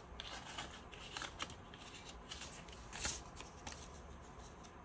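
Paper banknotes rustling and flicking as a stack of dollar bills is handled and slipped into a binder envelope, with a string of short crisp rustles and a fuller rustle about three seconds in.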